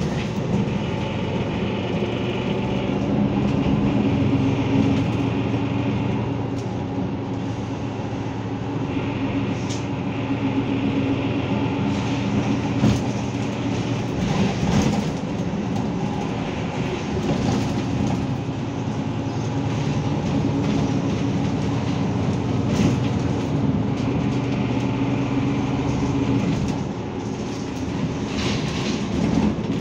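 Cabin sound of a Mercedes-Benz Citaro G articulated bus under way: a steady engine hum with road noise, a higher whine that comes and goes, and occasional knocks and rattles from the interior.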